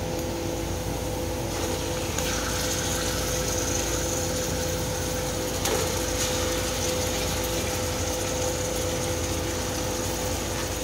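Marinated chicken pieces going by hand into a pot of frying onions: a faint sizzle that comes in about two seconds in, over a steady mechanical hum.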